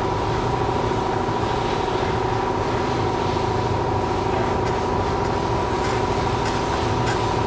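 A steady mechanical drone from a running motor, with two held tones over a low rumble and an even level. Faint short scraping strokes come in over it during the last few seconds.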